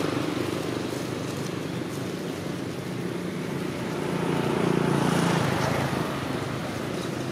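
A motor vehicle engine running steadily, with a low hum that grows louder about four seconds in and then eases off, as if a vehicle is passing.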